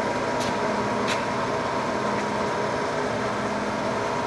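Lion 20" x 40" gap bed lathe running steadily with its headstock gearing in the slow speed range: an even mechanical hum, with two light clicks in the first second or so.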